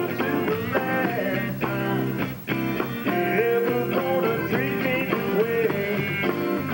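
A Chicago blues band playing live on electric guitars, electric bass and a drum kit to a steady beat. A lead line of bending, wavering notes runs over the band from about three seconds in, and the band drops briefly just before that.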